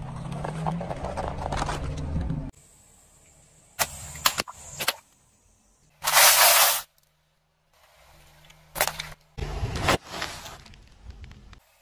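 Car tyre rolling over and crushing objects one after another. Paper party hats crackle as they flatten. A short, loud crunch about six seconds in comes as it rolls onto foil pie tins of fish-shaped crackers. Sharp cracks and crunching near the end come as it goes over a bag of crisps.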